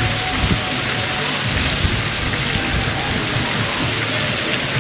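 Steady, rain-like hiss of water noise, even in level throughout.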